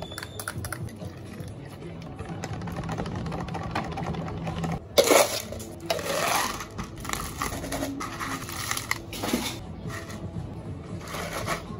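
Ice cubes clattering loudly as they are tipped from one plastic cup into another, about five seconds in, after a stretch of liquid poured into a plastic cup over a low steady machine hum. Near the end, milk poured from a plastic jug splashes over ice.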